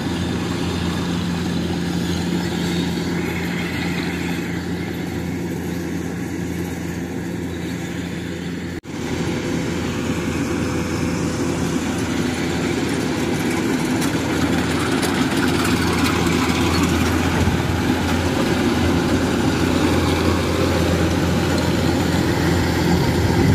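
Kubota DC-105 rice combine harvester running steadily under load as it cuts and threshes rice: a continuous diesel engine hum with the machinery's clatter over it, dropping out for an instant about nine seconds in.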